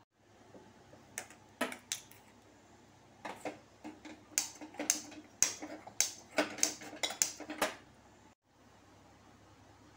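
A string of about fifteen sharp metallic clicks and taps at an aluminium kadai on a gas stove, irregularly spaced over six or seven seconds, some ringing briefly.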